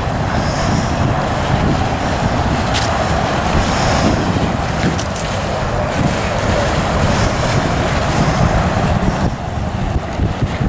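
Wind buffeting the microphone over the steady running of a small fire-rescue boat's outboard engine as it passes close by.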